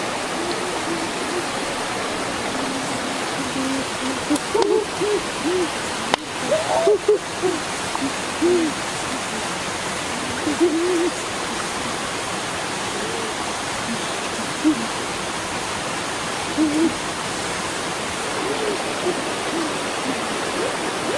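Small waterfall and stream rushing steadily, with short rising-and-falling hooting calls scattered through.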